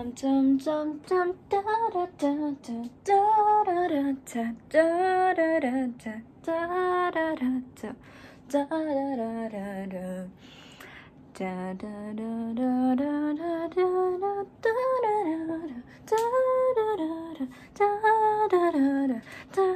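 A woman singing solo in phrases of long held notes that slide up and down, with short breaks between phrases.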